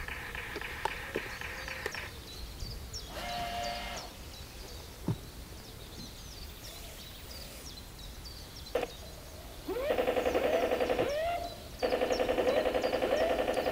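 Alarm signal played through the small loudspeaker of an RC model S-100 Schnellboot's sound module: a pulsing, pitched alarm tone, faint at first with a short burst, then loud from about ten seconds in with rising siren sweeps.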